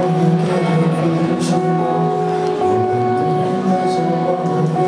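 Acoustic guitar playing chords, the notes ringing on steadily.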